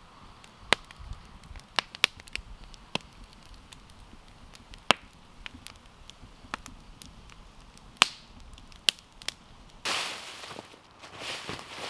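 Campfire of damp wood crackling, with sharp pops at irregular intervals of about a second or two. Near the end, a louder rustling noise comes in twice.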